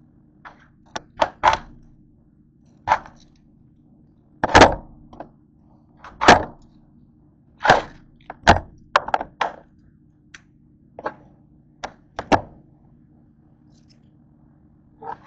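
Kitchen knife cutting through a head of green cabbage on a cutting board: irregular cuts and knocks of the blade against the board, about fifteen, the loudest about four and a half and six seconds in.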